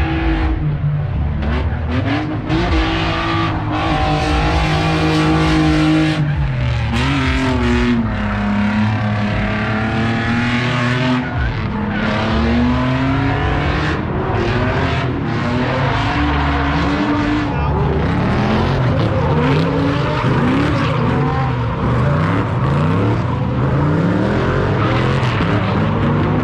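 Drift cars' engines revving hard, the pitch rising and falling as they power-slide, with tires squealing and skidding. In the later part the revs climb again and again in quick succession.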